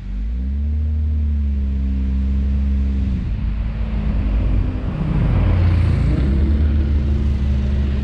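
Car engine running at low revs, a steady deep drone whose pitch shifts briefly about three seconds in before settling again, with road and tyre noise rising around the middle.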